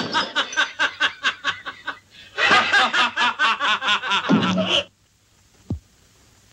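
Men laughing in two spells of rapid, rhythmic 'ha-ha' pulses, the second spell cutting off about five seconds in. Shortly after, a brief tone slides steeply downward.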